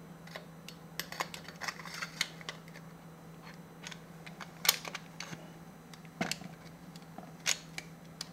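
Scattered metal clicks and light knocks from a Remington 870 pump shotgun's forend and action bars being slid and fitted into the receiver. The sharpest click comes about halfway through. A steady low hum runs underneath.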